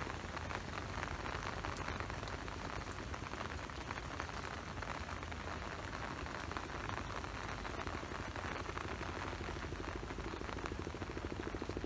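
Steady rain pattering, a dense fine crackle of drops. A low buzz joins about nine seconds in.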